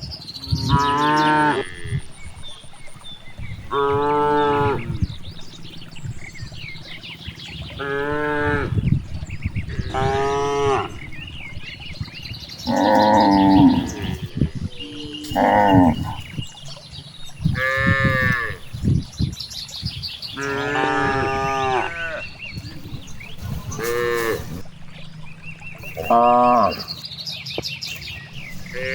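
Cows mooing over and over: about ten drawn-out calls, each about a second long, coming every two to three seconds at differing pitches.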